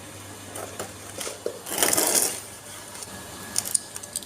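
Hand tools working the bolts under a washing machine motor: scattered metal clicks, with a short scraping, grating burst about two seconds in as a bolt is undone.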